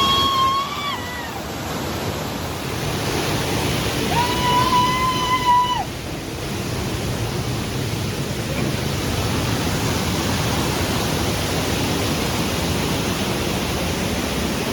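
Steady rushing of a waterfall. Two long, level, high-pitched calls sound over it: one at the very start and one about four seconds in.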